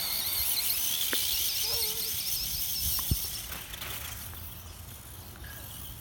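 Remote-control monster truck's motor whining at a high pitch that wavers up and down, fading after about three and a half seconds as the truck drives off across the lawn. Two light knocks come about a second in and about three seconds in.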